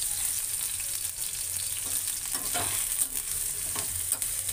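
Sliced onions sizzling steadily in hot refined oil in a frying pan, with a few scrapes as they are stirred.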